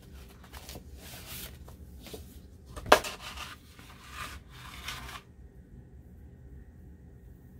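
Sheets of old printed paper rustling and crinkling as a folded page is opened out and laid flat on a cutting mat, with a sharp tap about three seconds in. The rustling stops about five seconds in.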